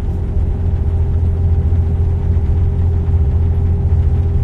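Steady low rumble of a tour bus heard from inside the cabin, with a faint steady hum riding above it.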